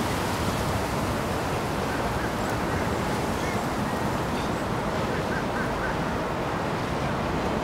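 Steady rushing wind noise on the microphone over choppy open water.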